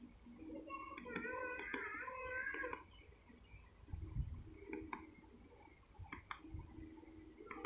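Sharp clicks of the keypad buttons on a Premium HD 8900 satellite finder meter, pressed about nine times as the menus are stepped through. There is a low thump about four seconds in, and a wavering call is heard in the background from about one to three seconds in.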